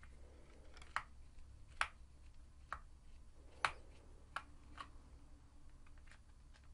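Faint, irregular clicks and taps of a small screwdriver tip against a plastic car key case as its screws are worked loose, about six clicks spread unevenly.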